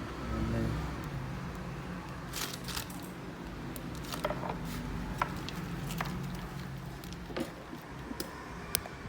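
Handling noises from small objects: scattered sharp clicks and light crinkling at irregular moments, over a low steady hum.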